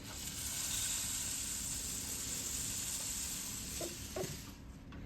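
Egg frying sunny side up in a pan: a steady sizzle that stops shortly before the end, with two light knocks just before it stops.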